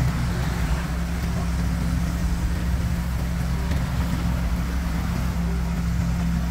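Asphalt paver's diesel engine running steadily while laying asphalt, a constant low drone.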